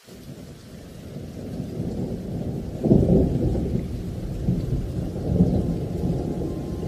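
Thunder rumbling in a rainstorm, building up from the start and peaking loudest about three seconds in, then rolling on.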